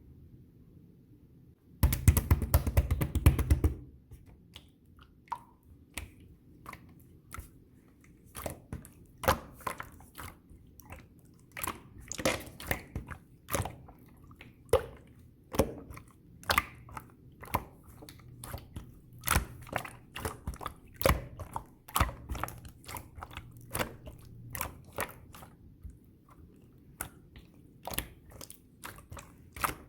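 Red pearl marbling slime being pressed and worked by hand. It gives a dense crackling burst about two seconds in, then a long run of sharp sticky clicks and small air-bubble pops at an irregular pace of one or two a second.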